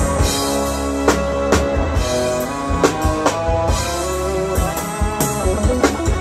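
Live reggae band playing an instrumental passage without vocals: drum kit with snare and bass drum hits over bass, electric guitar and keyboard.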